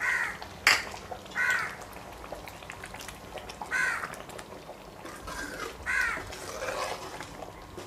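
A bird calling repeatedly outside: about five short calls, each roughly a third of a second, spaced unevenly. A single sharp knock about a second in.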